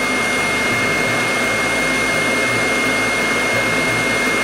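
Hot air gun of a Yihua 8786D rework station blowing steadily onto a circuit board to desolder a small transistor: a constant rush of air with a steady high whine.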